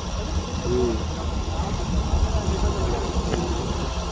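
Steady low rumble of an engine running, with faint, indistinct voices under it.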